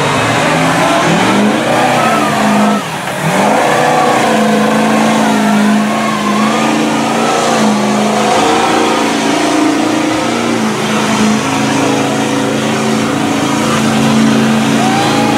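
Engine of a lifted pickup truck on giant mud tires revving hard and held at high revs under heavy load as it plows through deep muddy water. The revs dip briefly about three seconds in, then climb and stay up.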